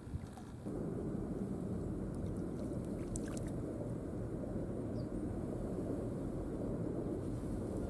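Steady rushing noise of flowing water, stepping up in level under a second in and then holding even.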